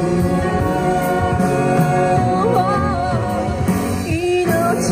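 A man and a woman singing a duet in harmony through microphones, holding long notes with vibrato.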